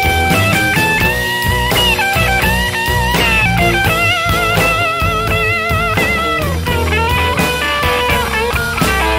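Blues band playing an instrumental break: a lead guitar line of bent, wavering notes over bass and drums.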